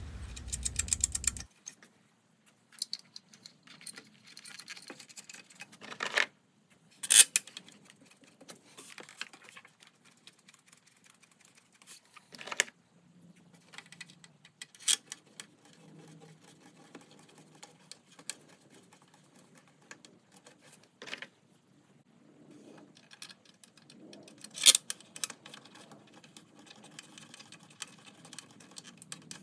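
Hand tools and small metal engine parts clinking and clicking as they are handled, with a few sharper knocks spread irregularly through the stretch.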